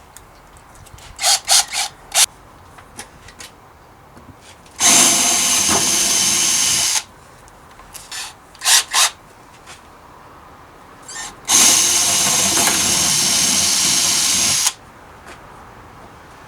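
Power drill run twice in two steady bursts of about two and three seconds, drilling out the snapped barrel adjuster from a Shimano RD-M567 rear derailleur with a 3 mm bit as the first step before tapping an M5 thread. A few short clicks and knocks come before and between the runs.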